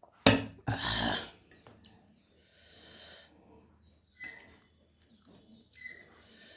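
Close-miked eating sounds: a sharp mouth smack about a quarter second in, then a loud hissing breath lasting about half a second, followed by quieter scattered mouth and breathing noises.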